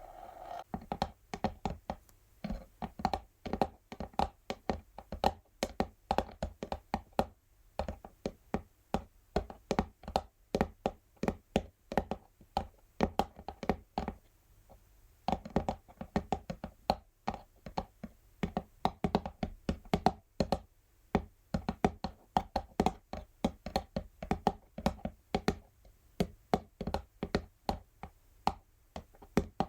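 Natural fingernails tapping on an empty textured cardboard box: rapid runs of sharp taps with short pauses between them.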